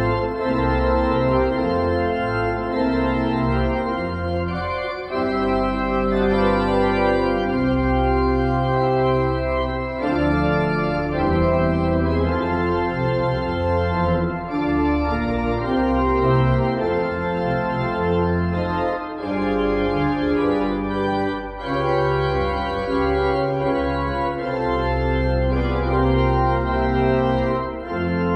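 Organ played with both hands on the manuals and feet on the pedalboard: full sustained chords over deep pedal bass notes, the harmony changing about every second, with a few brief breaks between phrases.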